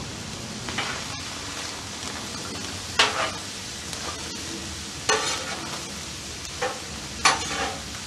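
Sliced peppers and onions sizzling steadily on a hot steel flat-top griddle, while metal spatulas scrape and turn them across the surface in several short, sharp strokes.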